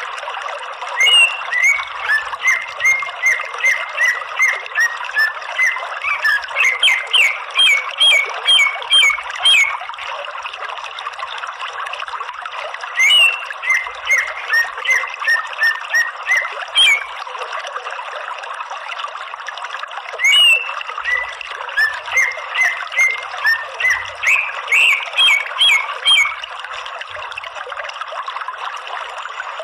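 Greater green leafbird (cucak ijo) calling: runs of rapid, sharp, high notes lasting a few seconds each, broken by short pauses, over a steady background hiss. It is a calling sound meant to draw caged leafbirds into answering.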